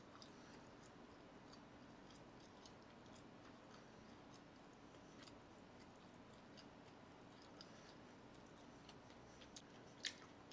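Near silence with a few faint scattered small clicks, and a sharper click near the end.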